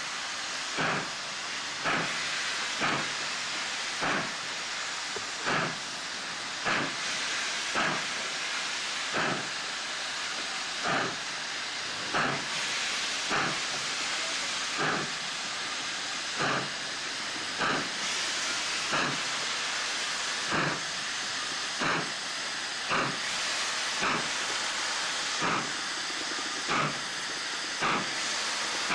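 Steam locomotive, a 4-8-2 colliery tender engine of the South African class 19D type, working slowly with a train. Its exhaust beats come evenly, a little more than one a second, over a steady hiss of steam escaping around the cylinders.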